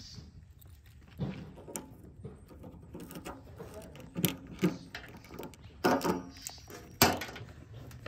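Keys jangling and a tractor's metal fuel-tank cap being turned open, then handling of a plastic jerrycan cap: a string of separate clicks and knocks, the loudest about six and seven seconds in.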